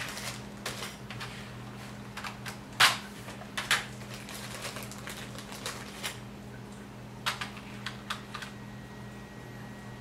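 Small plastic LED optics and their plastic tray and bag handled on a tabletop: scattered light clicks and crinkles, the sharpest about three seconds in and a short run of clicks near the end, over a steady low hum.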